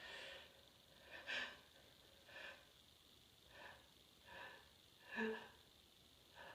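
A person's short, faint, catching breaths, about seven of them roughly a second apart, the strongest near the end with a slight voiced gasp. It is the build-up to a sneeze.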